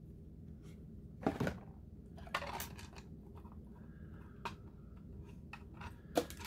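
Broken pieces of a crushed plastic display case being handled: a few scattered clicks and rustles of plastic, the loudest about a second in, over a low steady hum.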